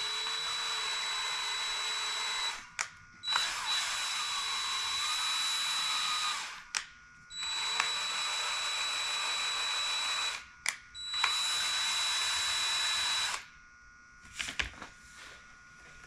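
Cordless drill spinning a valve through a rubber hose on its stem, lapping it into its seat in a Chevy 327 cylinder head. It runs steadily in four spells of about three seconds, with brief stops between them as it is switched between forward and reverse. It stops about 13 seconds in, and a few faint clicks of handling follow.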